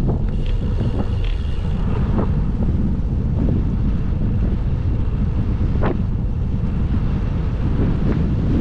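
Wind buffeting the microphone of a camera riding on a moving bicycle: a steady loud rumble, with a few short knocks.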